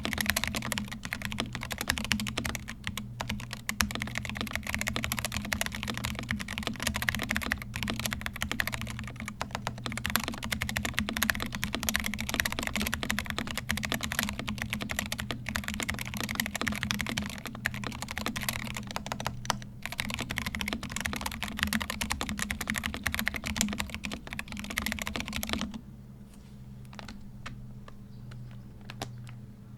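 Fast, continuous typing on a stock, unmodified Noir Gear Timeless82 mechanical keyboard, with a steady low hum underneath. The typing stops near the end, leaving only a few single keystrokes.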